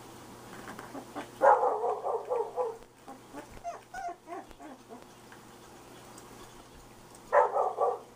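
Month-old red nose pit bull puppies yelping and whimpering: a loud run of high yelps about a second and a half in, smaller whimpers after it, and another short burst of yelps near the end.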